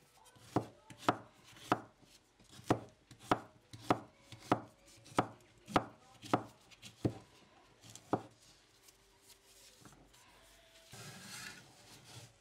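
A wide cleaver-style knife chopping diced zucchini on a wooden cutting board: about a dozen sharp knocks of the blade on the board, roughly one every half second, stopping about eight seconds in. Near the end the blade scrapes along the board as the pieces are scooped up onto it.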